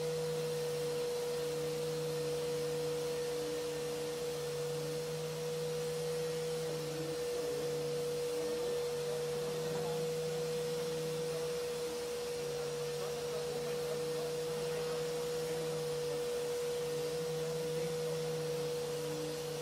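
Electric random orbital sander running on a wooden tabletop, with a steady high motor whine over a hiss. A lower drone underneath dips briefly a few times.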